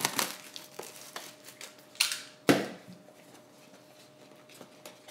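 Plastic shrink-wrap crinkling and tearing as it is pulled off a cardboard trading-card box, with a louder rustle about two seconds in and a sharp thump half a second later, then quieter handling.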